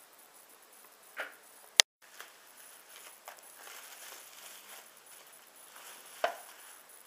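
Plastic packaging crinkling and rustling in hands: cellophane, then bubble wrap being pulled off a boxed doll, with a louder crackle a little after six seconds. About two seconds in, a sharp click and a split-second gap of silence mark an edit cut.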